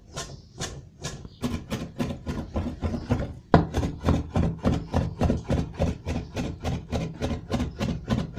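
A zırh, a long Hatay mincing knife, chopping parsley and red peppers on a wooden board in rapid, even knocks. The knocks come about three a second at first and then about five a second, with one sharper, louder strike about three and a half seconds in.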